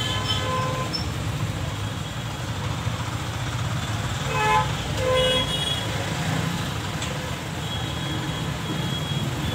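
Busy street traffic: motor scooters and an SUV pass close by with their engines running, and there are short horn toots about halfway through.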